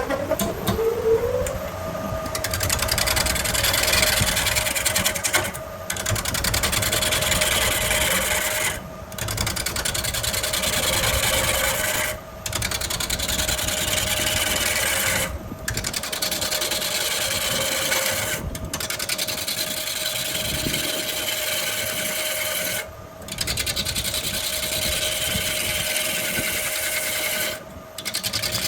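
A wood lathe spinning up, its motor whine rising in pitch over the first couple of seconds and then holding steady, while a turning tool cuts and scrapes the spinning wood with a continuous rasping hiss. The cutting is broken by brief gaps every few seconds.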